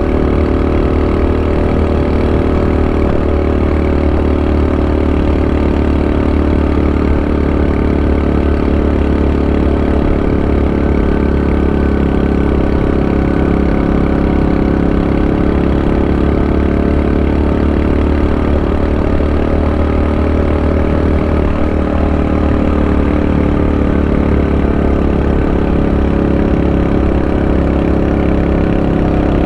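Honda Super Cub 90's small four-stroke single-cylinder engine running steadily at an even, unchanging speed, with no revving.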